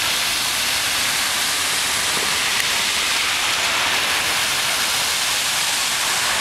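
Steady rushing hiss of water on a flooded road, with cars wading slowly through the floodwater.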